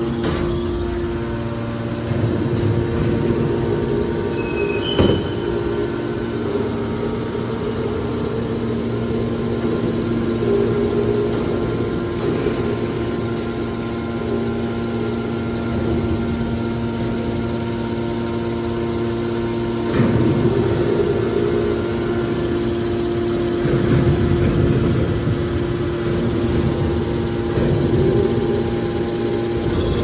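The electric motors and hydraulic pumps of a scrap metal baler running with a steady hum. There is a sharp knock about five seconds in, and the noise swells louder several times in the second half.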